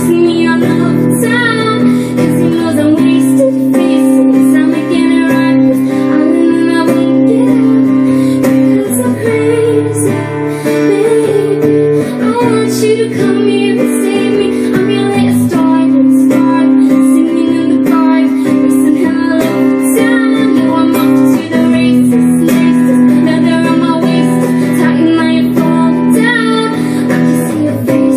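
Live acoustic guitar strummed steadily under a woman singing: a voice-and-guitar performance of a pop song.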